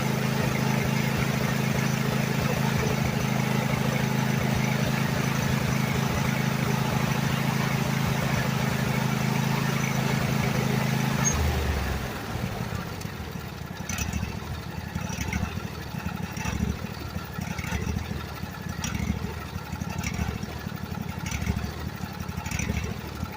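Freshly rebuilt Husqvarna carbureted engine running steadily, then dropping to a lower idle about 11 seconds in. At idle it runs unevenly with a slight surge, which the owner puts down to old spark plugs, one of them fouled from running on one cylinder.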